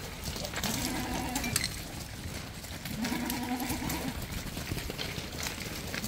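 Sojat goats bleating: two long, quavering bleats, one starting just after half a second in and one about three seconds in.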